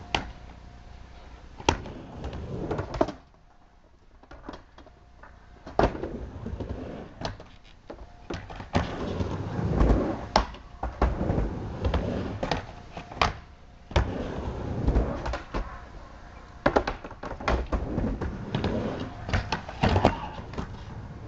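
Skateboard riding a mini ramp: the wheels roll back and forth under many sharp clacks and thuds from the board and trucks hitting the ramp's coping and deck. It goes quieter for a moment about four seconds in.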